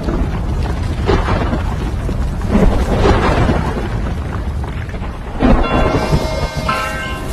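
Thunderstorm sound effect: a constant deep rumble of thunder with rain, swelling in noisy surges several times. Near the end a few steady tones come in over it.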